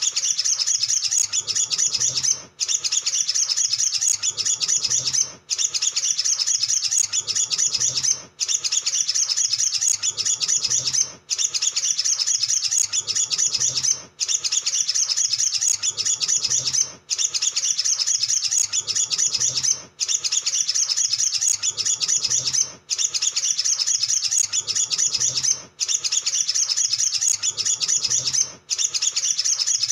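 Sunbird song: a fast, unbroken, high twittering chatter. It stops briefly about every three seconds, and the same phrase then starts again.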